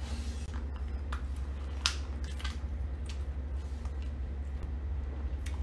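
A person chewing food, with scattered small clicks, the sharpest about two seconds in, over a steady low hum.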